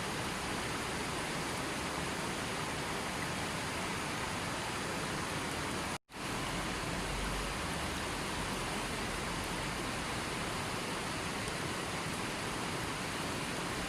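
River water rushing steadily, an even unbroken noise. It cuts out for an instant about six seconds in, then resumes.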